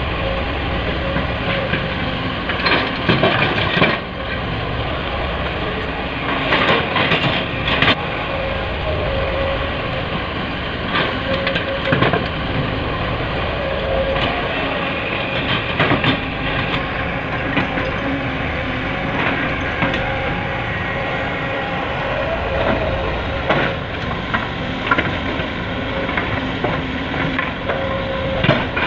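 Heavy diesel machinery running steadily, with irregular knocks and clatters of rock being loaded into a dump truck bed.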